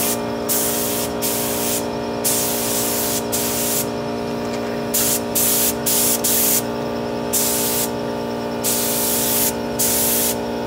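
Siphon-feed air spray gun hissing in short bursts, about one a second, as the trigger is pulled and released while a sealer coat goes onto bare metal. A steady hum with several fixed tones runs underneath.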